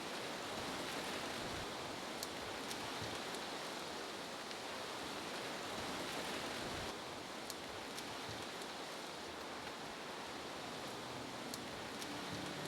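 Steady, even outdoor noise hiss, with a few faint high ticks scattered through it.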